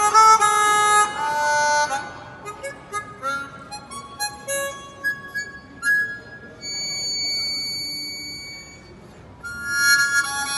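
Harmonica playing a Spanish-style melody with piano accompaniment. Loud held notes in the first two seconds give way to a quieter run of short separate notes and then a long, soft high note, before the harmonica comes back loud about a second before the end.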